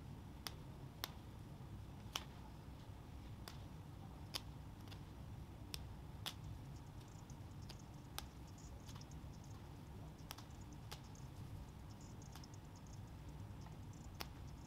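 Irregular small sharp clicks, about one a second, from hand work with a small tool at a hoodie's fabric, over a faint low steady hum.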